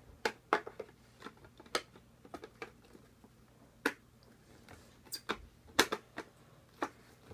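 Football helmet being handled while a plastic visor is worked into place behind the facemask: irregular sharp clicks and knocks of plastic on the helmet and facemask, the loudest a little before the end.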